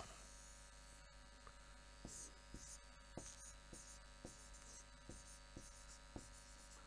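Near silence: a steady low electrical hum, with faint irregular ticks of a stylus tapping and sliding on an interactive display panel as letters are written.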